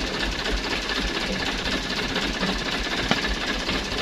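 Diesel truck engine idling with a steady, fast clatter.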